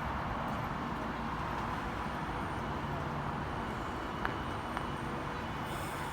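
Steady railway station ambience: a constant low mechanical hum under a broad rumble, with two faint clicks about four seconds in and a rising hiss setting in near the end.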